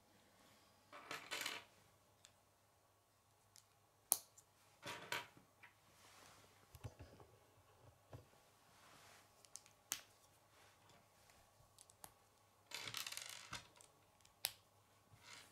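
Plastic K'nex rods and connectors handled and snapped together: short rustling scrapes of plastic, and three sharp clicks, the loudest about four seconds in.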